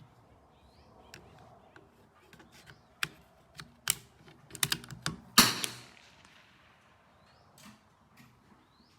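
Metallic clicks and knocks from the CZ 457 bolt-action .22 LR rifle being handled and a round chambered, then a single sharp rifle report about five and a half seconds in with a short echo. A few faint bird chirps sound in the background.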